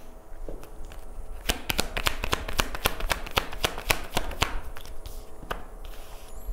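A deck of Egyptian tarot cards being shuffled by hand: a rapid run of crisp card flicks for about three seconds in the middle, with a few single card snaps before and after.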